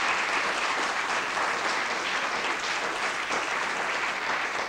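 Studio audience and contestants applauding: dense, steady clapping.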